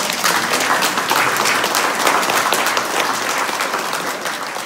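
A small audience applauding: many hands clapping together at a steady level, easing off slightly near the end.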